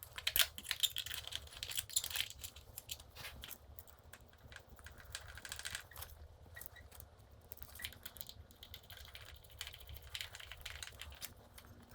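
Small metal parts and hardware clinking and rattling as they are handled, a run of light clicks that is busiest in the first few seconds and again near the end.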